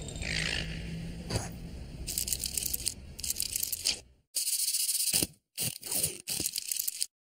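Cartoon sound effects for a spider creeping across its web: scratchy, hissing and scraping noises that come in a run of bursts, broken by a few short silent breaks in the second half.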